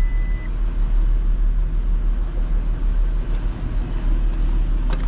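2008 Porsche Cayenne engine idling steadily on a jump start. A short high beep sounds at the very start and a click comes near the end.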